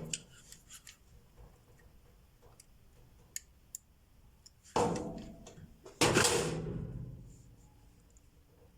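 Needle-nose pliers working a small crimp terminal onto a dryer motor's winding wire: a few light metal clicks, then two louder sudden squeezes about a second apart, each fading out over about a second.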